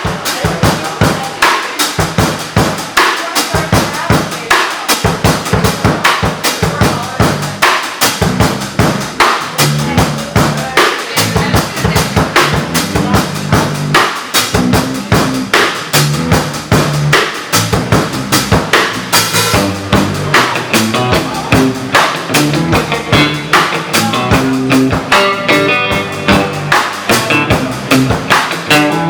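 Live rock band playing an instrumental passage, led by a drum kit with kick drum, snare and rimshots at a steady beat. Low bass notes join in about eight seconds in.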